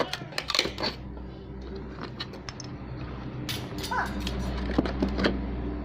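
Scattered clicks and rustles of a parcel being handled and opened.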